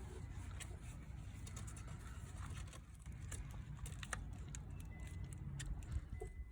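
Scattered light clicks and taps of hand and tool work in an engine bay over a low rumble, as a stuck VVT solenoid is wiggled and pried to work it loose.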